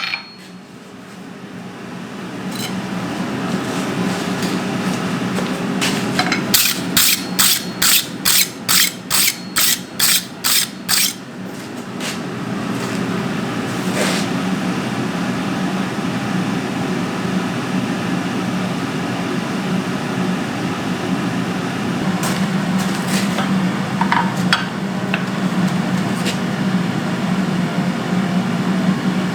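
Hammer blows on hot steel being forged: about six seconds in, a run of roughly a dozen quick, evenly spaced strikes over about four seconds, then a few lighter knocks later on. Under them, a steady mechanical running noise builds over the first few seconds and carries on throughout.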